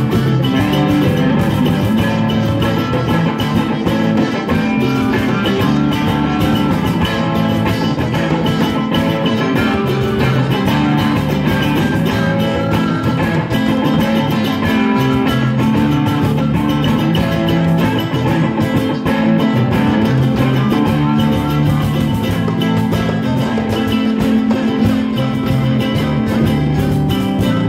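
Live rock jam band playing, with guitar, ukulele and drum kit together, recorded on a phone.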